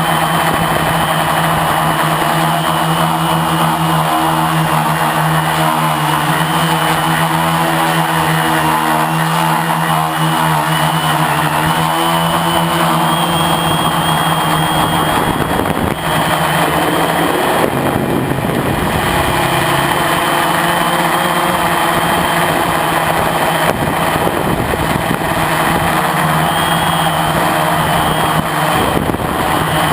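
Lotusrc T380 quadcopter's electric motors and propellers whirring steadily in flight. The pitch dips briefly about two-thirds of the way through as the throttle changes, then comes back up.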